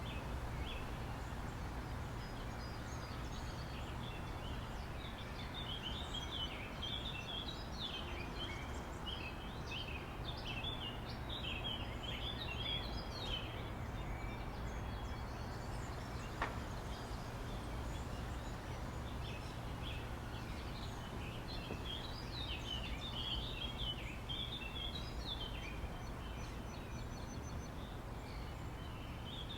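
Park ambience: a chorus of small birds chirping in busy clusters over a steady low background rumble, with a single sharp click about halfway through.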